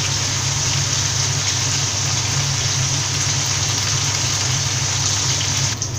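Fish pieces shallow-frying in hot oil in a pan: a steady, even sizzle, with a steady low hum underneath.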